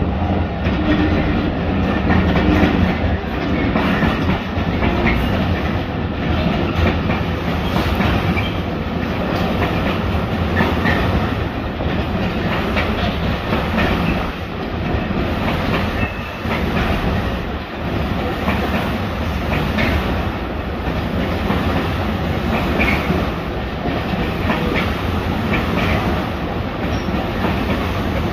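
Diesel-hauled freight train passing, its wagons' wheels clattering over the rail joints in a steady clickety-clack, with a few brief high wheel squeaks.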